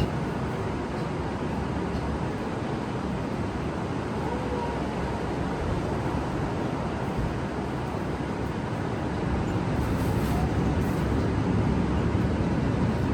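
Steady vehicle and road noise, getting a little louder near the end.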